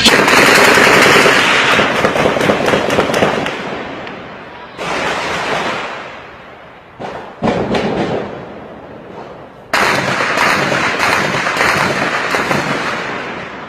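Four sudden volleys of rapid, crackling bangs, each starting abruptly and fading out over a few seconds.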